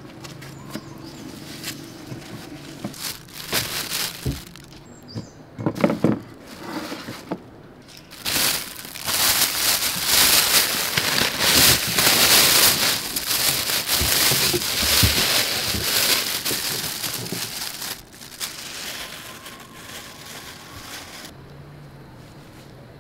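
Clear plastic bag of green beans crinkling and rustling as it is handled and opened, loud and continuous for about ten seconds in the middle, after a few scattered knocks and clicks.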